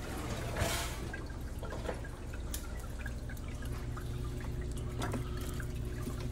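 Chicken thighs crackling and sizzling in a hot air fryer basket as they are turned over, a patter of small pops and clicks over a steady low hum. A brief noisy rush comes a little under a second in.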